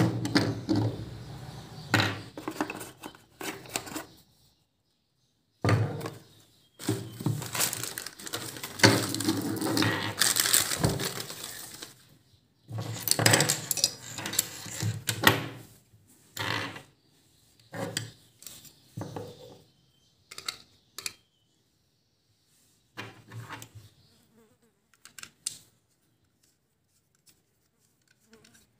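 Plastic parts of a helmet chin mount and a smartphone clamp holder being handled and fitted together on a table: irregular clicking, knocking and rattling in several bursts, busiest in the first half, separated by silences.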